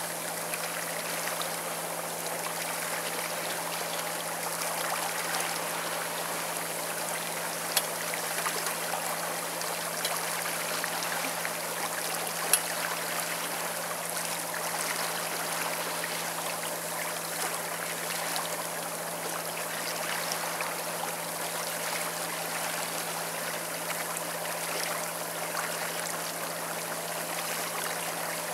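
Steady rush of water along the hull of a moving boat, with a constant low hum underneath. Two sharp clicks come a few seconds apart, roughly a third of the way in.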